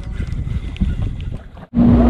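Wind buffeting the microphone over water lapping against a small boat. About a second and a half in, it cuts abruptly to a loud, steady boat engine with a held low hum.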